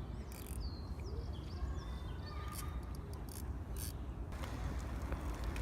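Small birds chirping over a steady low rumble of wind on the microphone, with a few short sharp clicks in the second half.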